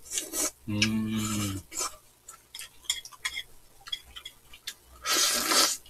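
Eating at a table of food in black bowls: chopsticks and a spoon clicking and scraping against the dishes with small mouth sounds, then a loud slurp near the end. A short hummed "mm" about a second in.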